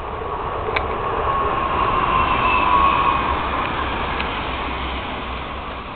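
Homemade smoke bomb of about 60 sparklers packed in PVC pipe burning with a loud rushing hiss that swells and then fades, a faint whistle running through it and a sharp crackle under a second in.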